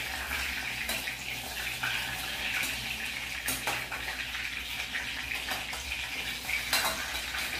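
Pastéis deep-frying in hot oil in a small pot: a steady sizzle, with a few light clinks of a metal spoon against the pot as they are turned.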